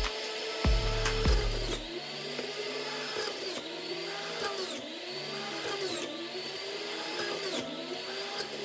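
Hamilton Beach Big Mouth Pro centrifugal juice extractor running as papaya pieces are pressed down its feed chute. Its motor whine sags in pitch and climbs back again about every second or so.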